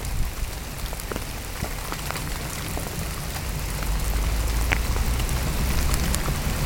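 Heavy rain, the steady hiss of drops on the pond with many sharp close drop ticks, pattering on the plastic bag covering the camera. A low rumble grows stronger about halfway through.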